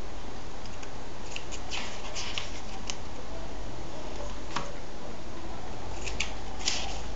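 Pages of a comic book being turned by hand: several short, crisp paper rustles and flicks in small clusters, over a steady background hiss.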